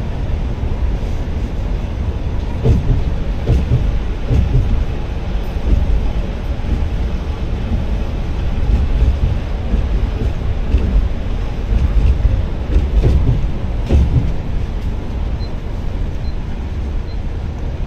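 Bus running at speed: a steady low rumble of engine and road noise, with occasional knocks and rattles.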